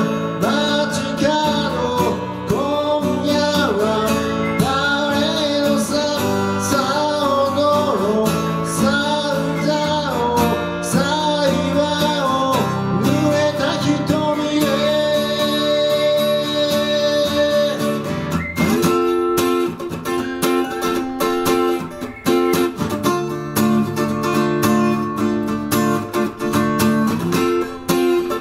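Acoustic guitar strummed with a man singing over it; the singing stops about halfway and the guitar carries on alone with strummed chords.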